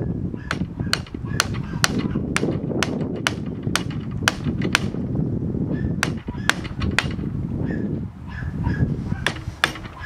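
Hammer blows on steel chisels wedged behind the seized pulley of a 1969 Cadillac Eldorado air conditioning compressor: sharp metallic strikes about two a second, pausing around five seconds in and again near the end before two more blows.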